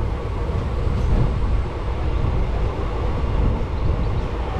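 Passenger train running along the track, heard from a coach doorway: a steady low rumble of the wheels on the rails, with rushing air over it.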